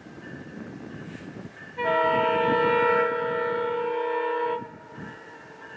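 Horn of VIA Rail's new Siemens train sounding one long blast of about three seconds, a chord of several steady tones, over a low rumble.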